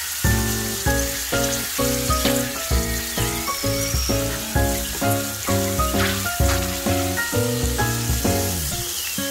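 Batter-coated small crabs deep-frying in a pan of hot oil, sizzling steadily and stirred with chopsticks near the end. Background music with a steady beat plays over it.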